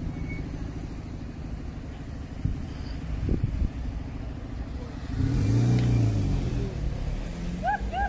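Road traffic: car engines running with a steady low hum, and a vehicle passing by about five seconds in, louder, its engine note rising and then falling.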